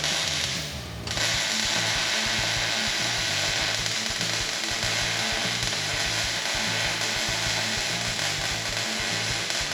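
A power tool running with a steady hiss, cut off for under a second near the start and then started again, over background music.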